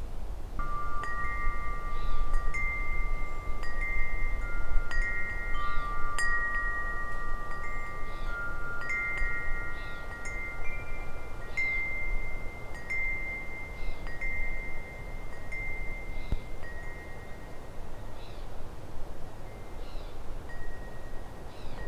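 Wind chimes ringing in the breeze: several metal tones at a few fixed pitches, struck irregularly and left to ring on, with a low wind rumble beneath.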